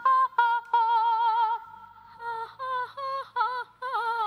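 Vocal-exercise singing in a high voice on an open 'a' vowel: a few short clipped notes, then notes held with a wide, wavering vibrato. It breaks off near the middle and starts again with short notes leading into another wavering held note.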